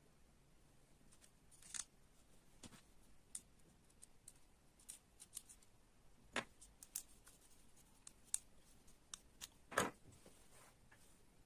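Small parts of a model excavator kit being handled and fitted: scattered light clicks and taps, irregularly spaced, with two louder knocks in the second half.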